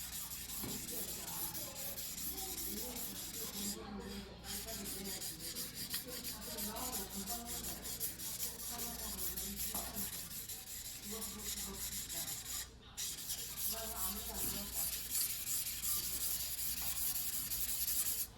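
A white #2 carbon-steel yanagiba blade is being hand-sharpened on a whetstone, with steel scraping over the stone in quick back-and-forth strokes. The strokes pause briefly about 4 seconds in and again about 13 seconds in.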